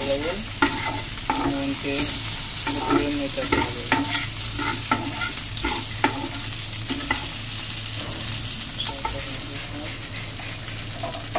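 Slotted metal spatula stirring and scraping chicken pieces, onion and green chillies around a nonstick frying pan while the oil sizzles: irregular scrapes and taps on the pan over the sizzle. A steady low hum runs underneath.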